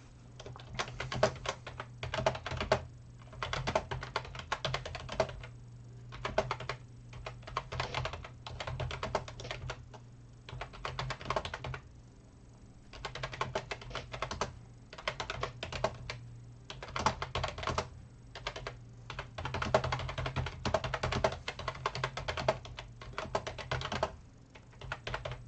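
Rapid small clicks and clatter in bursts of a second or two, with short pauses between.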